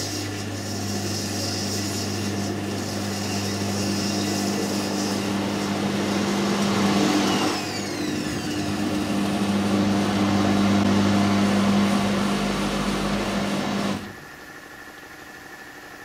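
Haier top-load washing machine's motor humming as it churns an overloaded load of towels on the wash agitation. The hum dips briefly about halfway, runs on, then stops about two seconds before the end.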